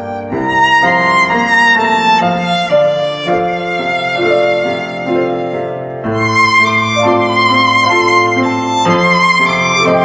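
Instrumental background music: a melody of held notes, getting fuller from about six seconds in.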